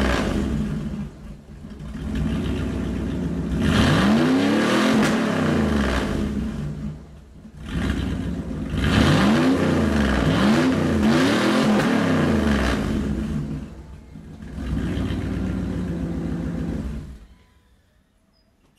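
A 1997 Jeep Grand Cherokee V8 running with its muffler removed, leaving only the catalytic converter in the exhaust. The engine is blipped again and again: each rev rises and falls back, with three quick revs in a row midway. The sound cuts off near the end.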